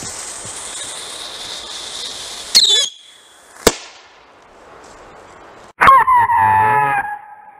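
Whistling bottle rocket set off inside a block of ballistic gel. The lit fuse hisses for a couple of seconds, then there is a short squealing burst and a single sharp bang about a second later. Near the end comes the loudest part, a screeching whistle falling in pitch for just over a second.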